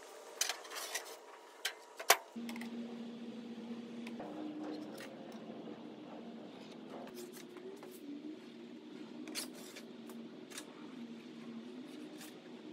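Light handling noises from a metal sheet and hand tools: a few sharp clicks and knocks in the first two seconds, the loudest about two seconds in. After that comes a faint steady hum with scattered soft ticks as a square and marker are worked along the sheet's edge.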